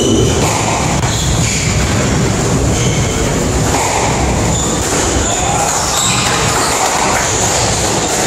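Squash rally on a wooden court floor: ball hits off racket and walls and short squeaks of shoes, over a loud steady rumbling background noise.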